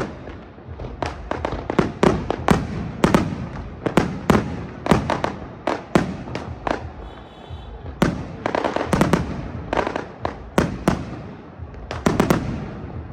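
Fireworks going off in a long run of sharp, irregular bangs and cracks, often overlapping, with denser volleys about eight seconds in and again near the end.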